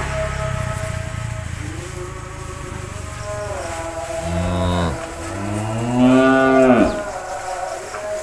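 Cattle mooing: two long moos, one about three seconds in and a louder one about six seconds in, each rising and then falling in pitch.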